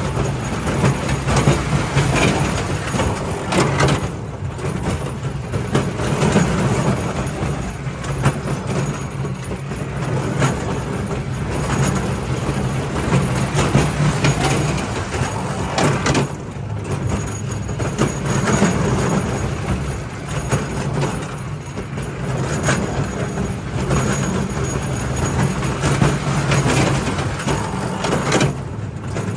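B.A. Schiff steel roller coaster train rumbling and rattling along its track on a steady ride, the loudness rising and falling with short lulls three times, mixed with wind on the microphone.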